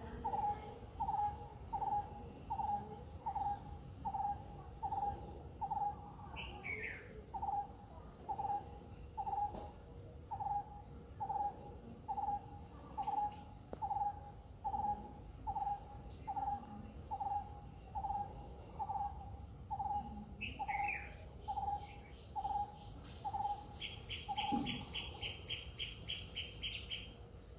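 A bird calling a long, steady series of single low hoots, a little more than one a second, which stop near the end. A couple of short falling chirps and, near the end, a fast high trill from other birds.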